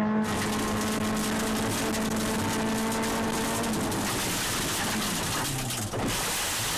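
Honda Civic Type R rally car heard from inside the cabin on gravel: the four-cylinder engine holds steady revs, then the revs drop a little past halfway and fall further. Gravel and stones spray and rattle against the underbody throughout.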